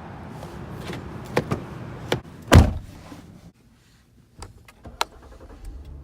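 A car door shut with one heavy thud about two and a half seconds in, after a few lighter clicks and knocks. Outside background noise drops away soon after, and a few small clicks follow in the quieter cabin.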